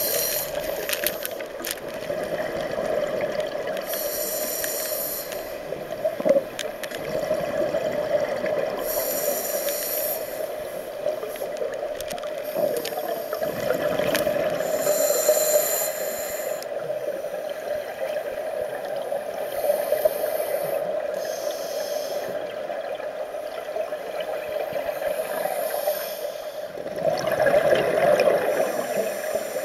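Scuba diver breathing through a regulator underwater: a short hiss on each breath about every five or six seconds, with gurgling bubbles between, over a steady hum.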